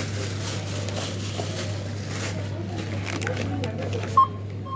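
Indistinct voices and counter noise at a shop till, then a short beep from a barcode scanner about four seconds in as an item is scanned.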